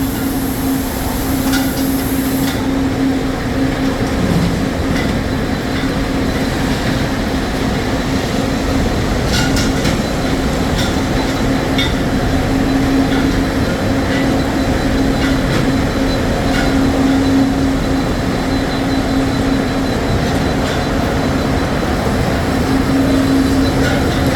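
Sawmill machinery running: a loud, steady mechanical din with a low hum, broken by scattered knocks and clatters.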